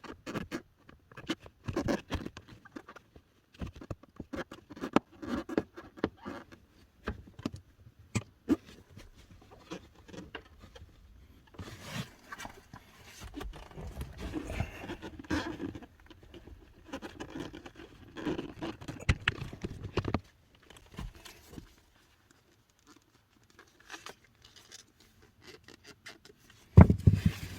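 Hands working on plastic car interior trim and the cabin air filter housing: irregular clicks, taps and scrapes, with denser rustling partway through and one loud knock near the end.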